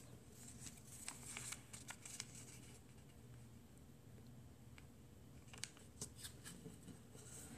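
Faint rustling and crinkling of a sheet of origami paper being folded and creased by hand, in short scattered bursts during the first couple of seconds and again about six seconds in.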